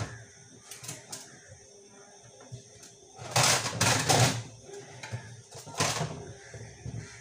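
A pumpkin being washed by hand in a kitchen sink. A few light knocks come first, then two louder splashes: one about a second long about three seconds in, and a shorter one just before six seconds.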